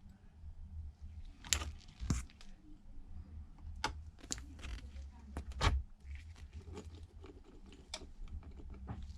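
Irregular sharp clicks and taps of small precision repair tools, such as a screwdriver and tweezers, against the metal internals of an iPad Pro, over a low steady hum.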